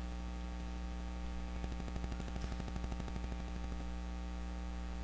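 Steady electrical mains hum with a faint static hiss, no voice.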